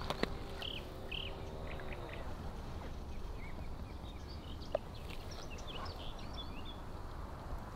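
Outdoor ambience: small birds chirping in short scattered calls over a steady low rumble. A low drawn-out tone starts about half a second in and lasts over a second, and there is a single sharp click near the middle.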